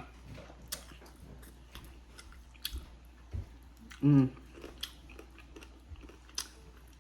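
Close-up chewing and mouth smacking of someone eating fried chicken wings, with many short wet clicks. About four seconds in there is a brief voiced sound.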